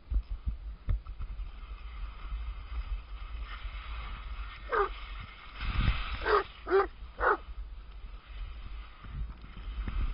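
A dog whines four times in the middle of the stretch, each short call falling in pitch, over a steady low rumble of skis sliding on snow and wind on the microphone.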